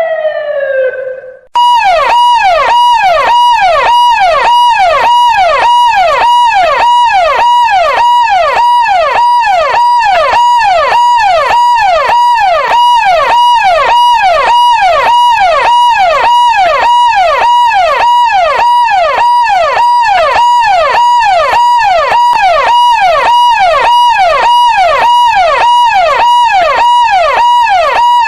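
Electronic police siren. It opens with a slow falling tone that fades out, then about a second and a half in switches to a fast repeating cycle of about two falling sweeps a second, which holds steady throughout.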